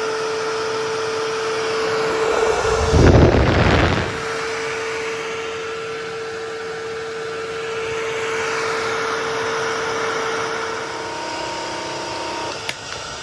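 Wet-dry hard-floor cleaner running, a steady motor whine over a rushing noise. About three seconds in a loud rush with a deep rumble breaks in for about a second, and near the end the whine breaks into several lower tones.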